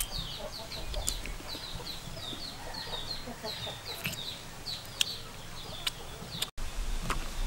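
Chicks peeping in a fast run of short, high, falling notes that stop about five seconds in, with a few sharp clicks of crab shell and a spoon against a glass bowl.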